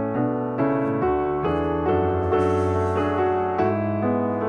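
Background piano music, with a new note or chord about twice a second.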